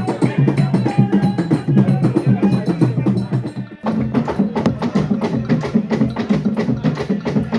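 Live traditional Central African drumming: fast, dense hand-drum and percussion strokes in a steady rhythm, with voices singing over them in the first half. The sound drops out sharply for a moment just before the middle, then the drumming goes on.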